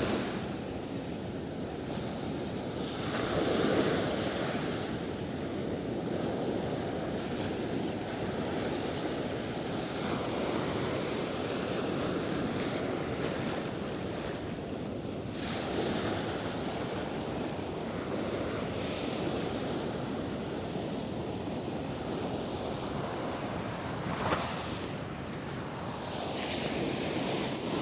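Sea waves washing against a rock breakwater, with wind buffeting the microphone. The wash swells louder a few times.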